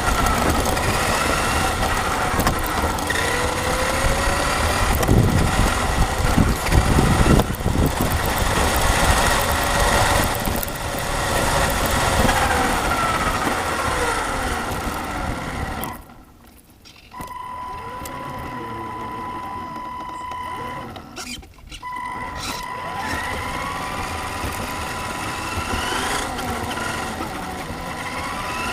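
Radio-controlled car's motor whining, its pitch rising and falling as the throttle changes. About two-thirds of the way through it drops off suddenly and goes on more quietly with a steady high tone.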